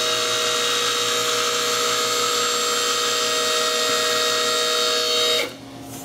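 Vehicle lift's electric pump motor running with a steady whine as the van is raised, cutting off about five and a half seconds in.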